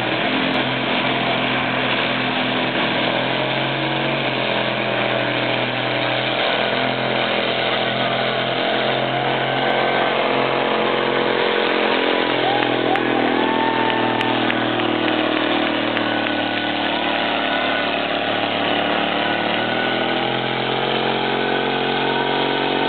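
Case 1370 tractor's turbocharged six-cylinder diesel engine working hard under load as it pulls a weight-transfer sled: a steady, loud drone with a few brief dips.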